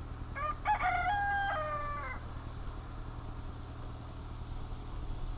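A rooster crowing once, a call of about two seconds that rises and then steps down in pitch at its end.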